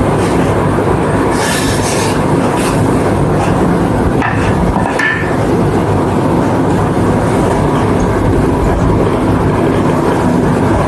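Steady loud background noise with a low hum, and a few light knocks and clatters of wooden track boards being set down on wooden blocks.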